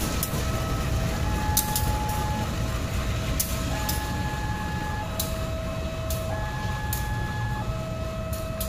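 Level-crossing warning alarm sounding a two-tone alternating signal, a lower and a higher tone each held a little over a second. Under it runs the low rumble of diesel locomotives moving away, with a few sharp clicks of wheels over rail joints.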